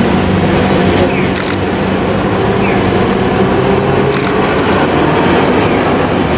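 Hiroden 1900-series tram (ex-Kyoto City tram 1902) moving off and approaching, its motors humming and wheels running on the street track over steady city traffic noise. There are short hisses about a second in and again near four seconds.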